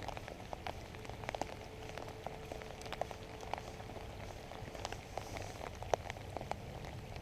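Rain falling, with many separate drops ticking close by at irregular moments.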